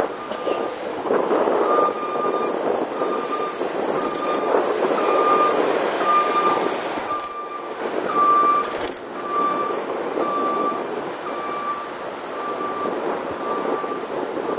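Wind and rolling noise of a moving bicycle on the microphone, with a high electronic beep repeating about every two-thirds of a second, like a vehicle's reversing alarm.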